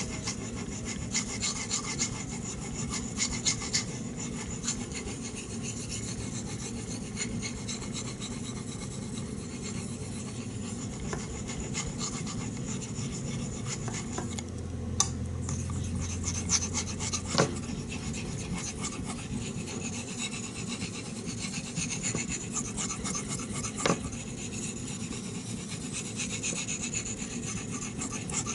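A steel knife blade, the CPM 3V Gunny Hunter, is stroked back and forth on a wet Chosera #3000 water stone, making a steady gritty rubbing with scattered light clicks.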